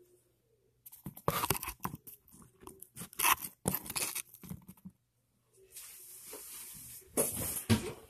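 Handling noise from a phone being picked up, moved and propped up: a run of rubbing, crackling and knocks on the microphone, a steady hiss for about a second and a half, then more knocks just before the end.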